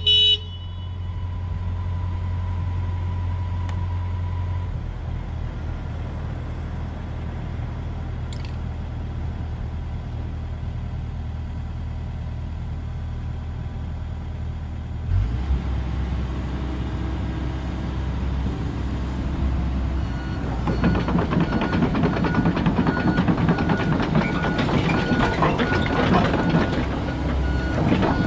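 Komatsu PC78US-8 excavator's diesel engine running steadily. About 15 s in the engine note changes, and from about 20 s it runs louder with an evenly repeating high beep, the machine's travel alarm as it moves.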